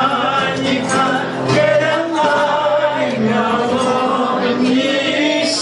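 Two men singing a duet, one voice through a handheld microphone and PA, with live guitar accompaniment.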